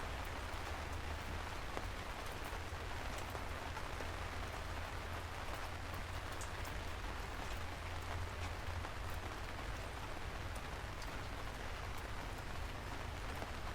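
Steady rain falling, an even hiss with a low rumble underneath and scattered sharp drop ticks.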